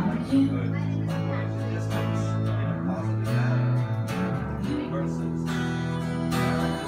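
Instrumental passage of a live acoustic duo: an acoustic guitar strummed steadily over an electric upright bass holding long low notes that change every second or two.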